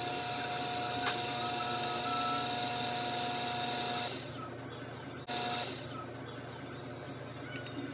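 Electric hand mixer running with a steady whine, its beaters churning a thin liquid mixture. About four seconds in it is switched off and its pitch falls as it winds down; a second later it runs again for a moment and stops.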